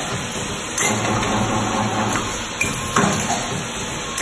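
Wire ring making and welding machine running: a steady hiss and hum, with a sharp metallic clunk roughly every two seconds as it cycles.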